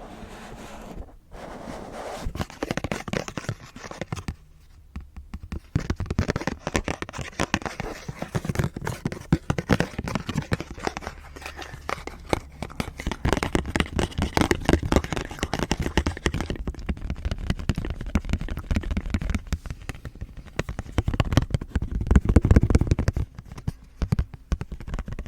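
Close-miked ASMR handling of a fake Pokémon card: rapid irregular crackling, scratching and tapping, sparse at first, then dense and louder from about six seconds in.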